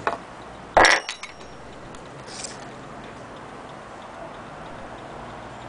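Antique French slate and marble mantel clock ticking, with a loud knock about a second in.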